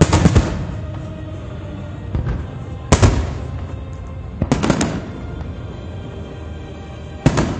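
Fireworks display: aerial shells bursting in a series of sharp bangs about every one to two seconds, each trailing off in a rumbling echo, some followed by quick crackles. The loudest burst comes about three seconds in.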